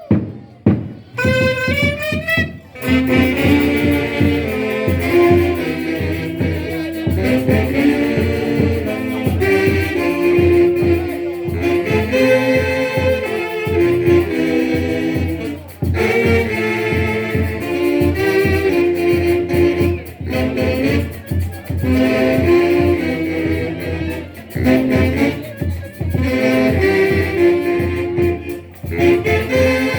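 A band playing Latin dance music with saxophone and brass over a steady beat. It opens with a quick rising run of notes.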